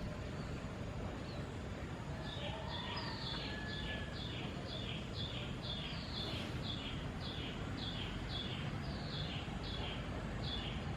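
A bird chirping over and over, about two short high chirps a second, each stepping down in pitch, starting about two seconds in, over a steady low outdoor background hum.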